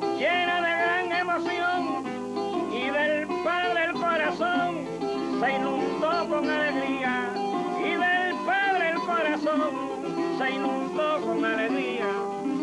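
Folk music on plucked strings, with a wavering, gliding melody line above a steady accompaniment in phrases of a second or two.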